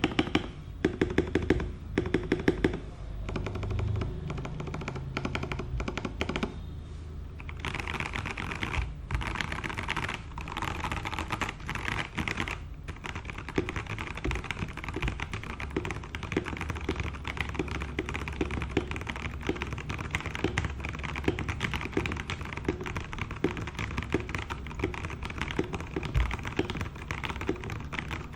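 Typing on a Keydous NJ81 mechanical keyboard with Kailh Box Brown tactile switches on a steel plate. Keystrokes come in short separate clusters at first, then turn into fast, continuous typing a few seconds in.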